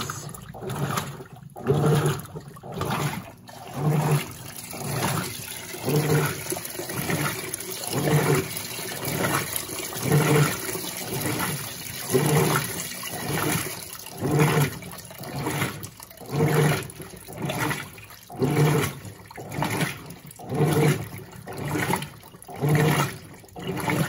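Electrolux LB12Q top-loading washing machine agitating in water: a hum and a surge of sloshing come with each stroke of the agitator, about one every two seconds, over the steady splash of water still running into the tub from the dispenser.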